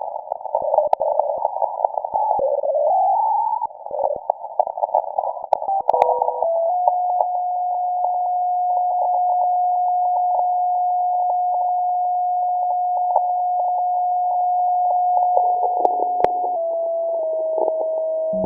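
Shortwave receiver audio from a WebSDR in a narrow CW passband: thin band-limited static with crackles, a tone sliding upward in pitch as the receiver tunes across a signal, then a steady unkeyed carrier beat tone that steps slightly lower in pitch near the end.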